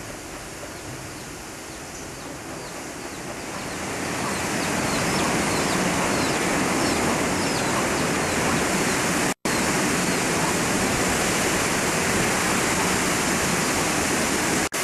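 Steady rushing noise of a hurricane's wind and rain, swelling louder about three to four seconds in and then holding. It cuts out for an instant a little past halfway.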